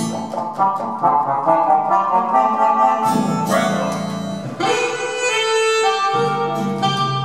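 A Roland V-Accordion (digital accordion) played solo: quick melodic runs over a bass accompaniment, with a few held chords about five seconds in before the quicker notes return.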